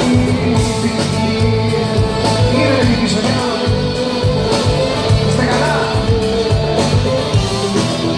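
Live band playing an instrumental stretch of a Greek pop song, with a steady drum beat under guitar and keyboard lines, heard through the venue's sound system.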